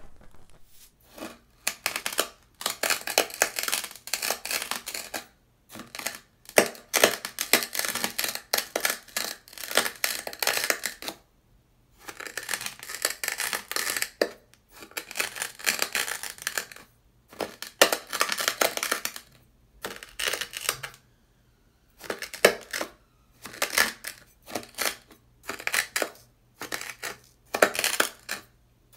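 Dry beach sand crunching under a metal blade pressed and dragged through it on sandpaper: a long series of crunching strokes with short pauses between them, starting about a second in.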